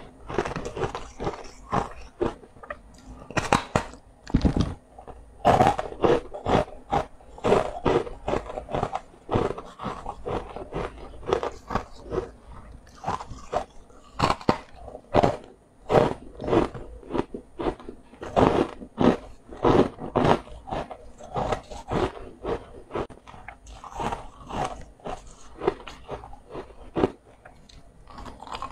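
Close-up eating of a crunchy sweet food: bite after bite of sharp, crisp crunches and chewing, in an irregular stream with short gaps.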